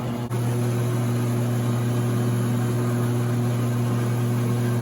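Christmas tree baling machine's motor running with a steady low hum while a tree is fed through to be wrapped in netting.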